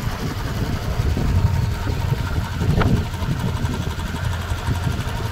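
Royal Enfield motorcycle's single-cylinder engine running as the bike rolls along slowly: a steady, low, rhythmic thump.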